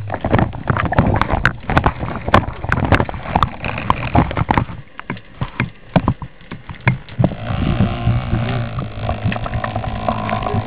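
Underwater sound picked up by a diver's camera: a dense, irregular run of sharp clicks and knocks over a steady low hum, with a steadier, higher drone joining about seven seconds in.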